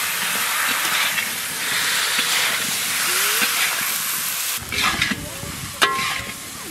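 Potato wedges sizzling loudly in hot oil and spice paste in a large kadai as they are stirred, the first stage of sautéing (koshano) the potatoes with the masala. Near the end the sizzle drops away and a long metal spatula clinks and scrapes against the pan a few times.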